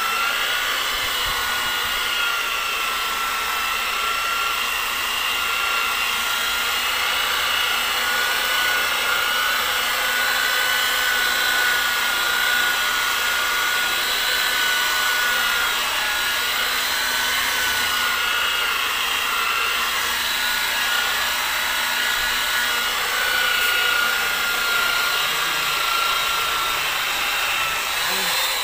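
Electric rotary polisher with a wool buffing pad running steadily against a painted truck panel, a high steady motor whine, as it works rubbing compound into the paint. It cuts off right at the end.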